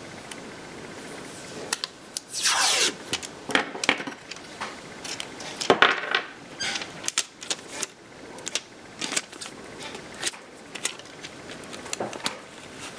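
Tape ripped off the roll about two and a half seconds in, a loud tearing sound falling in pitch. It is followed by scissors snipping the tape and strips being handled and pressed onto a cap, a string of short clicks and rustles.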